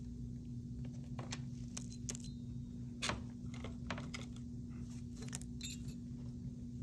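Scattered light clicks and taps of stainless steel dental hand instruments and a small plastic composite compule being set down and moved on a tabletop, the loudest about three seconds in and a quick cluster near the end, over a steady low hum.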